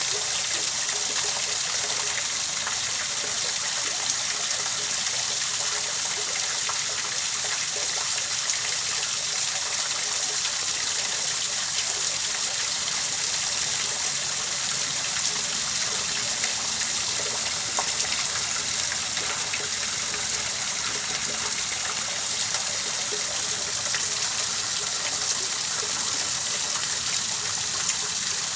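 Steady rushing water, an even, unbroken hiss of flowing water that does not change.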